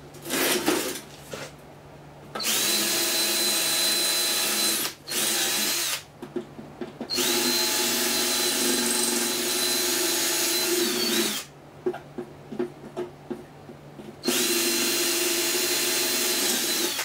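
Ryobi cordless drill drilling out the hinge rivets of a sheet-steel alarm cabinet: a steady whine in three runs of a few seconds each, with a short burst after the first. There is a clatter as the cabinet is turned around near the start, and knocks of handling in the gaps.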